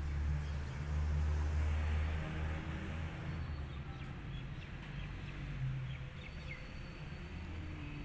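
Outdoor ambience: a steady low hum, with a few faint bird chirps in the middle.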